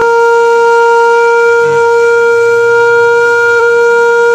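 A single long, loud horn-like blown note held at one steady pitch, with a slight waver near the end.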